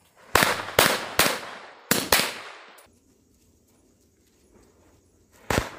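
Sharp firecracker bangs, five in quick succession in the first two seconds or so, each trailing off in an echo, then one more near the end.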